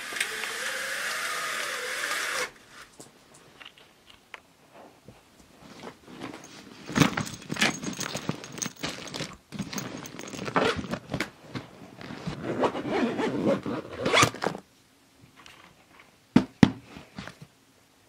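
Hissing for the first couple of seconds that cuts off suddenly, then irregular bursts of scraping and rustling handling noise, and a couple of sharp clicks near the end.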